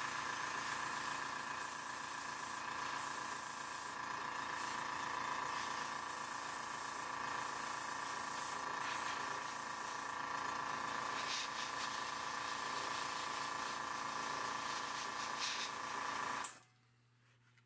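Small airbrush compressor running steadily with a humming tone, under the hiss of an airbrush spraying paint at very low pressure; the hiss breaks off briefly a few times as the trigger is eased. About a second before the end the whole sound cuts off suddenly.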